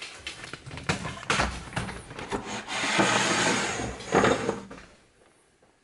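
Hand handling noises on a wooden desktop: a run of clicks and knocks, then a longer rubbing sound and a sharp knock about four seconds in, as a foam Nerf dart is worked out of a small toy vise.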